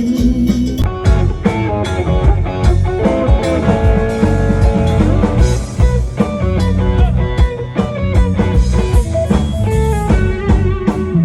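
Band music with guitar, bass and drum kit at a steady beat.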